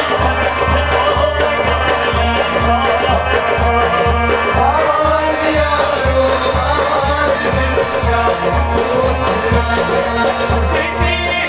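Live folk song: a man singing a sliding melody over a harmonium's steady chords, with a clay pot drum beating a steady rhythm about twice a second.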